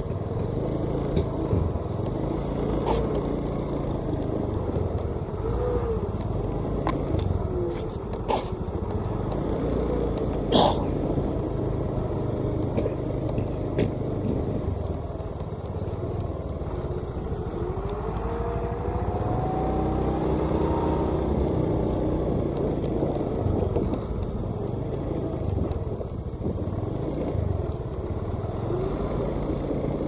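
Engine of a light flatbed truck running at low road speed while it hauls a tracked combine harvester. A few knocks and rattles sound early on, and a whine rises in pitch about two-thirds of the way through.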